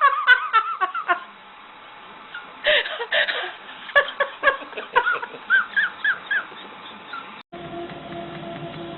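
A pet making short, high-pitched squeaks in quick runs, stopping after about a second and starting again a second and a half later. Near the end the sound cuts abruptly to a steady hum with a held low tone.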